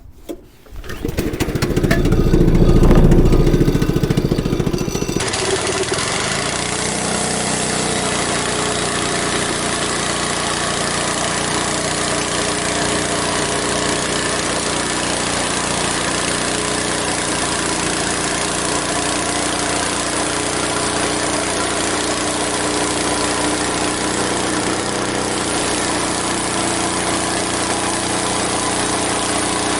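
Portable band sawmill's engine starting about a second in and revving up, then running at a steady speed after an abrupt change about five seconds in.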